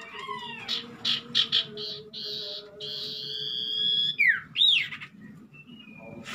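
Sirtu birds in a small aviary colony calling over one another with chirps and whistles. There are two loud swooping whistles, one falling and one rising then falling, about four to five seconds in.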